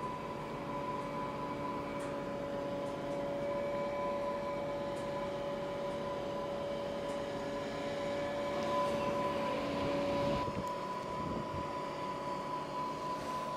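Goldhofer PST/SL-E self-propelled modular trailer's Cummins diesel power pack running steadily, with a high whine at two pitches over the engine hum as the loaded trailer creeps along; the lower whine drops out about ten seconds in.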